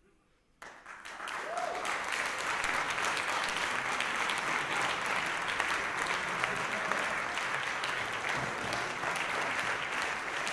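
Theatre audience applause, starting suddenly about half a second in out of near silence, building over the next second and then going on steadily.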